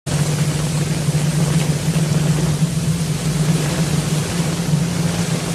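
Steady low engine drone of a vehicle driving on a wet road, with an even hiss of heavy rain and tyre spray.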